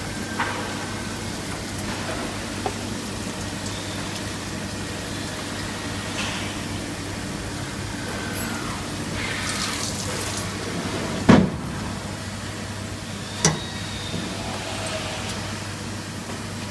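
Spherical turning lathe running with a steady machine hum, scattered light clicks, and two sharp knocks in the last third.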